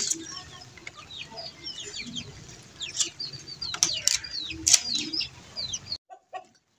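Metal hasp and padlock on a wooden cage door being worked by hand, giving sharp metal clicks at the start and several more between three and five seconds in. Many birds chirp in short, falling calls throughout, and the sound cuts off suddenly about six seconds in.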